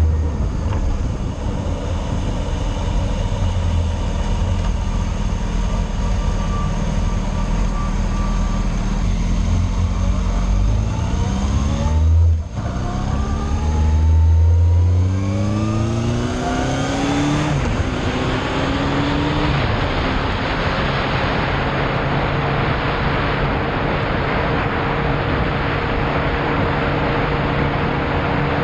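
Yamaha Fazer motorcycle engine under way: it runs steadily, then about ten seconds in its pitch climbs as it accelerates, breaks off briefly at a shift around twelve seconds, and climbs again. From about eighteen seconds a loud wind rush at speed covers a steady engine note.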